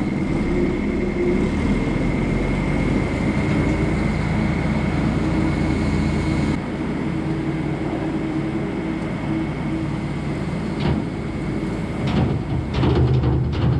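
Vertical TMR feed mixer running, heard from inside its steel tub: its twin auger screws turn through haylage with a steady mechanical rumble and a thin high tone. Near the end a loader bucket dumps hay into the tub, adding rattling and knocks.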